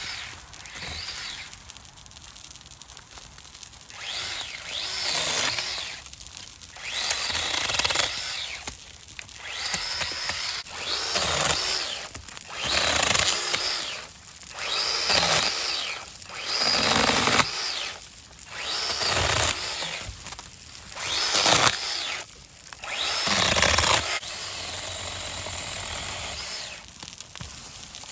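NAOKEV 6-inch battery-powered mini chainsaw cutting through brush and small branches in a string of short cuts, about one every two seconds, each lasting a second or so. Near the end there is a steadier, quieter noise.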